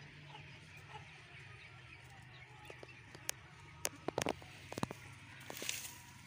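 A few soft clucks from Aseel chickens, with scattered short clicks and a brief rustle a little before the end.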